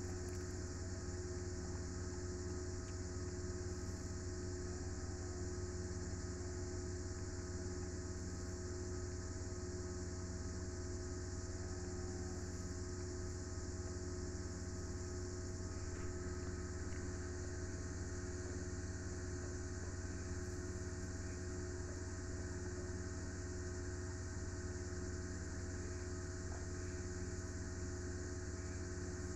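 Steady background hum with a constant high drone above it, unchanging throughout; the dog's chewing is not clearly heard over it.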